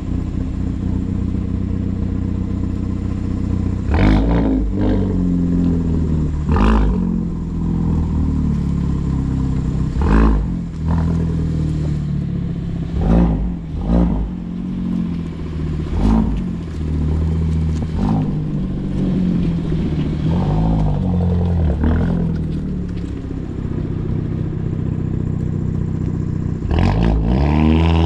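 Hyundai Veloster N's turbocharged 2.0-litre four-cylinder running through a freshly fitted MBRP slip-on exhaust. It idles and is blipped about nine times, each short rev rising and falling with a sharp crack. Near the end it pulls away with a rising engine note.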